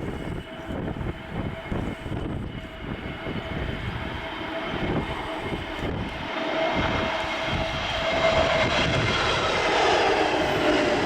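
Jet engines of an Airbus A321neo, a steady whine with clear tones, growing louder through the second half as the airliner comes closer. Gusts of wind buffet the microphone underneath.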